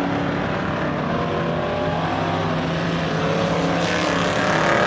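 Several stock car engines running at race speed around a short oval, a layered, steady engine drone that grows louder and brighter in the last second or so as cars come closer.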